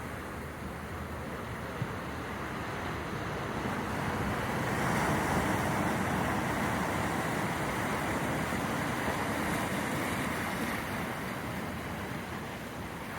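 Ocean surf washing in, a steady rush that swells about five seconds in and dies down a couple of seconds before the end, with breeze on the microphone.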